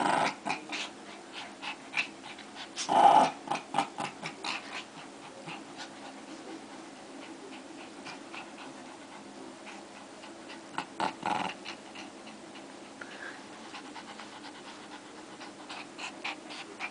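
Two small dogs growling and snarling as they play tug-of-war over a rope toy, in bursts: at the start, loudest about three seconds in, again around eleven seconds and near the end.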